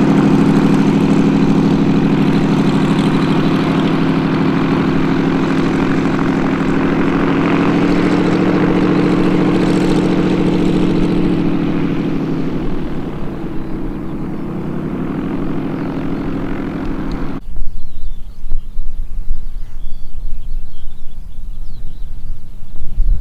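Supermarine Spitfire's V12 piston engine and propeller running at taxi power: a steady, loud drone that rises slightly in pitch about eight seconds in and eases off around twelve seconds. It cuts off abruptly about seventeen seconds in, leaving a gusty low rumble of wind on the microphone.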